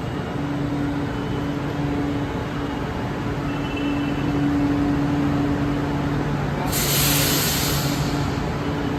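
Chennai Metro train standing at the platform with a steady electrical hum. About seven seconds in there is a sharp hiss of released air lasting about a second, which fits the train readying to pull away.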